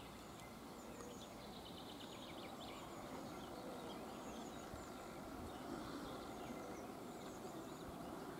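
Faint ambience of small birds chirping in the distance, with a short rapid trill about two seconds in, over a low steady hiss.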